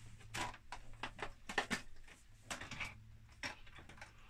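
Plastic case of a Commodore breadbin home computer being turned over and set down on a desk: a scattered series of light knocks and clicks.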